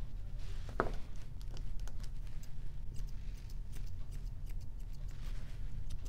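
Dog grooming shears snipping the coat in light, irregular clicks, with one stronger click about a second in, over a low steady hum.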